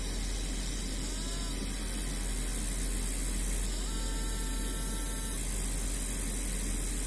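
Steady low electrical hum under an even hiss, with a faint held tone of a few pitches for about a second and a half a little past the middle.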